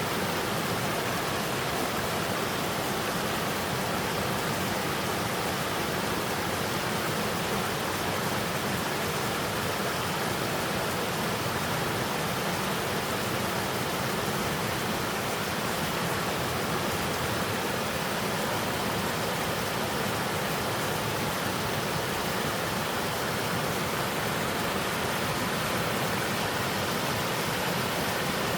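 Mountain waterfall pouring steadily over a three-tier rock cascade into a stream, a constant rush of falling water without breaks.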